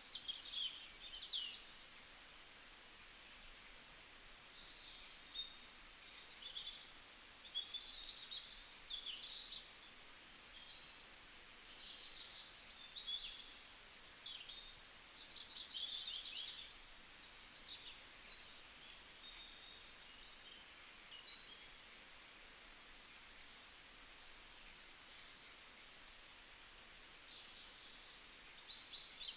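Birds singing and calling: many short, high chirps, whistles and quick trills overlapping, over a faint steady hiss.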